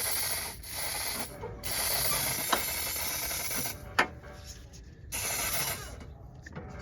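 WD-40 aerosol can spraying in several hissing bursts, the longest about two seconds, to lubricate a Fiat Mobi's clutch cable that had been making a strange noise when the pedal was worked. There is a sharp click between the bursts.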